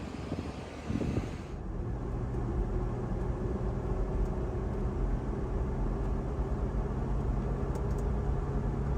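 A vehicle driving: a steady, low engine drone with road noise, heard from inside the cab. About a second and a half in, the sound changes abruptly to this even drone.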